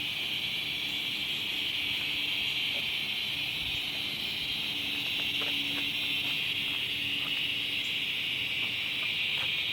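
Steady chorus of insects, a continuous high-pitched shrill, with a faint low hum underneath.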